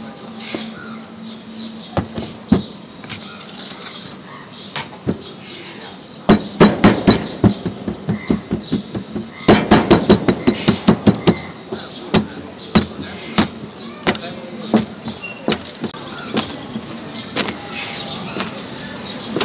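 Oiled paratha dough being slapped and patted flat by hand on a flat oiled surface, in two runs of quick slaps, several a second, near the middle. Scattered single knocks and slaps come before and after.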